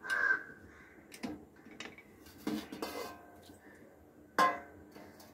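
Metal clicks and clatter of a steel pressure cooker's lid and handles being handled, a few light knocks and one sharp louder click about four seconds in.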